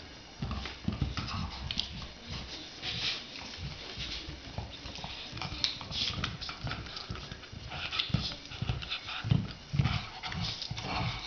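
A bull terrier chewing and mouthing a soft toy ball, with irregular soft thumps and rustling as it works the ball against its bedding.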